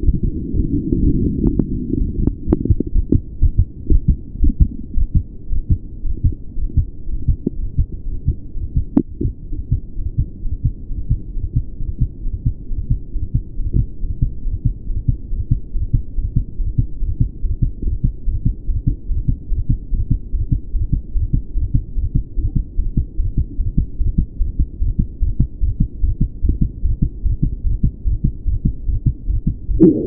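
Human heartbeat picked up by a chest-piece microphone held at the pulmonic area: a steady, regular run of beats, with a few sharp clicks in the first ten seconds. The recorder hears odd extra sounds in this recording and wonders whether they are a murmur or a split.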